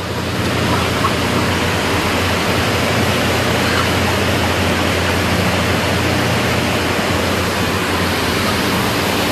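Loud, steady rushing noise with a low hum from the slaughterhouse's ventilation and machinery, with a couple of faint chirps from broiler chickens in their crates.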